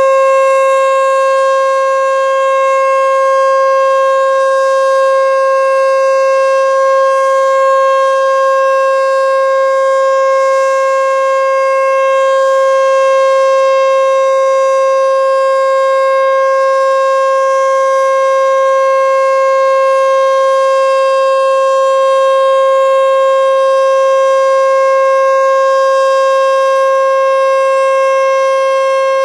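American Signal T-121 outdoor warning siren sounding a steady Alert signal in a scheduled test: one loud, unbroken tone that holds its pitch without rising or falling.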